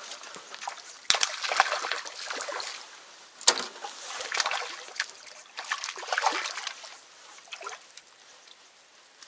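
Water splashing and sloshing in irregular bursts, with a couple of sharp knocks, dying away near the end.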